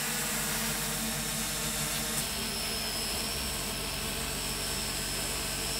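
Multirotor drone hovering: the steady whir of its electric motors and propellers, with a thin high whine joining about two seconds in.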